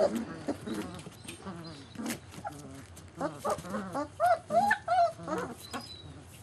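German Shepherd puppies yipping and whining at play, with a run of short, high calls that bend up and down from about three to five and a half seconds in.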